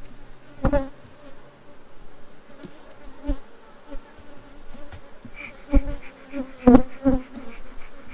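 Honey bees buzzing in a steady hum over an open hive box. Several short knocks break through it, the loudest a little after the middle, as wooden hive equipment is handled.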